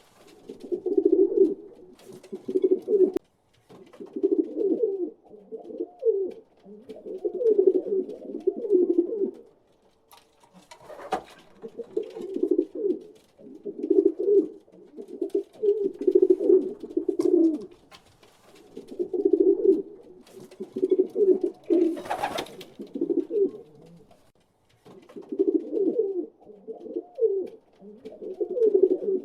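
Pigeons cooing over and over in low, throaty phrases of a second or two each, with short pauses between. About eleven seconds in and again about twenty-two seconds in there are brief sharper noises, the second louder, like a wing flap or scuffle.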